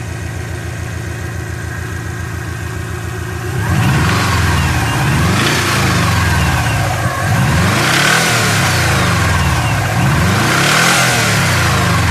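Subaru EJ20 flat-four engine idling, then revved up and let fall back three times, run to bring out a knock that the owner cannot identify.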